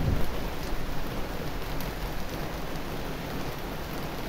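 Steady rain falling on trees and balcony plants, an even hiss of rain, with a brief low rumble right at the start.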